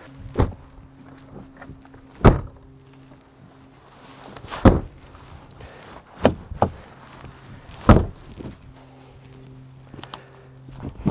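Heavy thunks on an old Chevy Tahoe's body: about six hard knocks at irregular intervals, a second or two apart, over a faint steady low hum, typical of the hood or doors of a long-abandoned truck being forced open.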